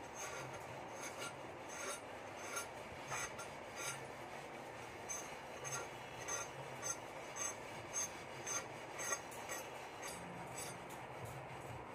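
Pointed gourd (potol) skin being scraped against the blade of a boti, a fixed Bengali kitchen blade: a rhythmic rasping of short strokes, about two a second.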